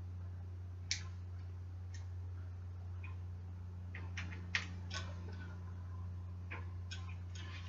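Scattered light metallic clicks and taps of hand tools working on a bicycle's threadless-stem headset top cap, over a steady low hum.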